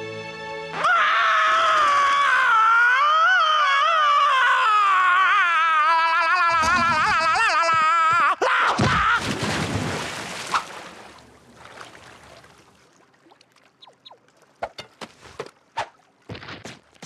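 Cartoon voice holding one loud, long sung note with wide, wavering vibrato for about seven and a half seconds. It breaks off into a jumble of noisy knocks and scrapes, then a few light taps near the end.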